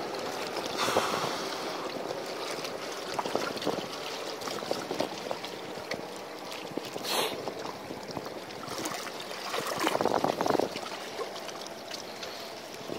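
Seawater lapping and sloshing at the water's edge with a little wind noise, swelling into louder splashes about a second in and around ten seconds, with a brief sharper noise around seven seconds.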